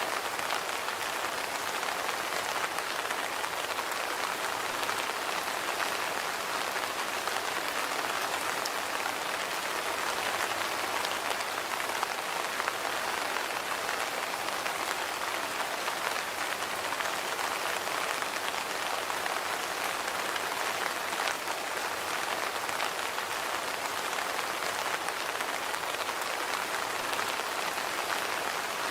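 Steady rain falling and pattering on surfaces, an even hiss of many small drops with no let-up.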